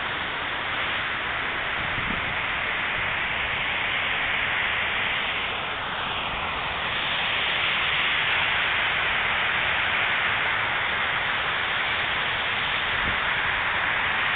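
Steady rushing hiss of the Unisphere fountain's water jets spraying and splashing into the pool, growing a little louder about halfway through.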